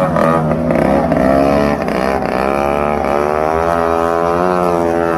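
Motor scooter engine running steadily, its pitch wavering gently up and down.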